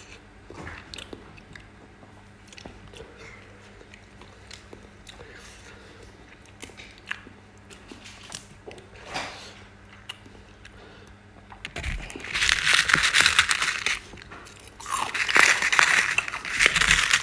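Close-miked eating-show food handling: faint scattered clicks and taps as oysters and herbs are picked from the sauce by hand and with a spoon. About twelve seconds in come two loud spells of crisp crunching and crackling, a short pause between them.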